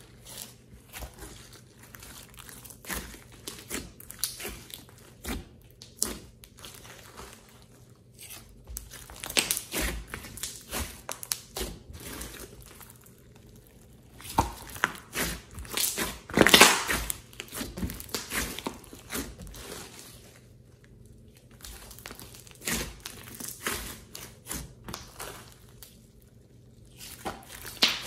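Hands kneading, stretching and pressing a thick clay-mixed slime full of floam beads: irregular sticky squishes and crackles in clusters with short pauses, loudest a little past halfway.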